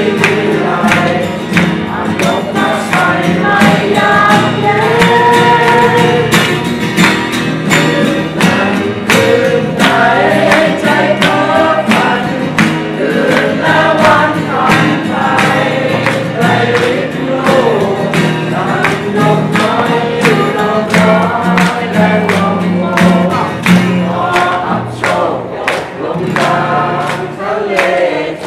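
A song playing: singing with several voices together over an instrumental backing with a steady beat.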